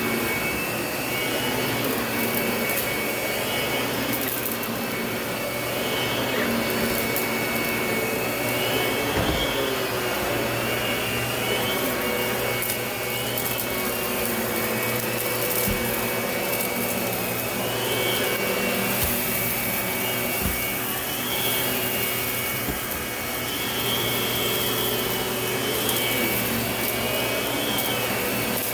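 Lindhaus vacuum cleaner running steadily, its high whine rising and falling every few seconds as it works over the floor, with a few brief knocks.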